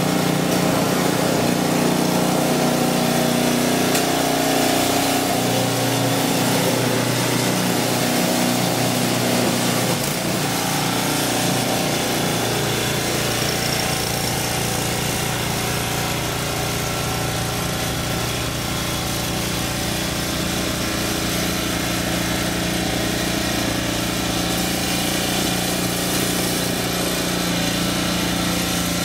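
Two-stage snow blower's engine running steadily under load while its auger and impeller throw snow out of the chute; its note drops slightly about ten seconds in.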